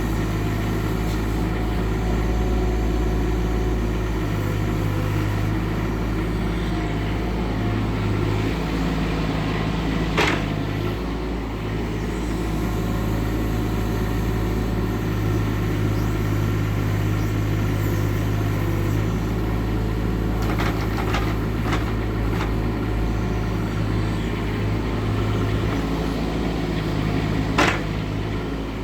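Doosan DX19 mini excavator's diesel engine running steadily under work, with a sharp metallic clank about ten seconds in, a few lighter knocks later, and another sharp clank near the end.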